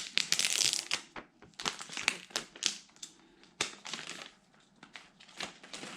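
Packaging of an iPhone 11 box crinkling and rustling in short, irregular strokes with a few sharp clicks as the box is opened by hand.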